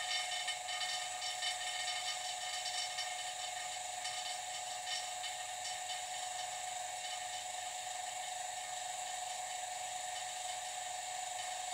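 Vacuum pump evacuating a vacuum chamber, running with a steady mechanical drone. Rapid rattling clicks sound over it for the first few seconds before it settles to an even run.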